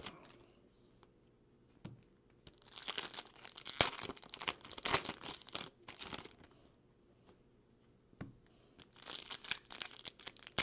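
Foil wrapper of a basketball trading-card pack crinkling and tearing as it is opened by hand, in two bursts of a few seconds with a quieter stretch between.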